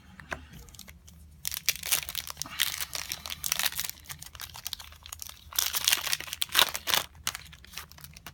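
Trading card pack wrapper being torn open and crinkled by hand, in two spells of crackling.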